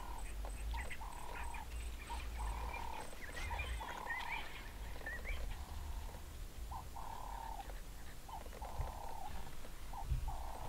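A frog calling over and over, a short note at a steady pitch about once a second, with some thin bird chirps in the first half and a low rumble underneath.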